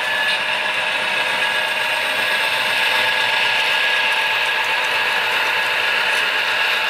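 HO scale model freight train running past close by: steady mechanical whirring of the model locomotives' motors and gears, with the rattle of wheels on the track.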